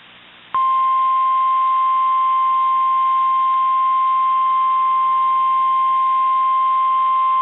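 NOAA Weather Radio's 1050 Hz warning alarm tone: a single steady beep that switches on about half a second in over faint radio hiss and holds unbroken. It signals that an urgent warning, here a tornado warning, is about to be read.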